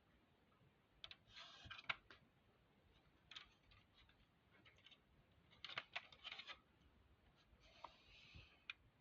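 Faint handling noises: scattered clicks and rustles in four short clusters, with a single sharp click near the end.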